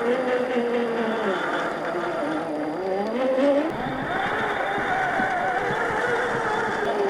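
Brushed 540 electric motor and gear drive of a 1/10-scale RC crawler whining, its pitch rising and falling as the throttle changes.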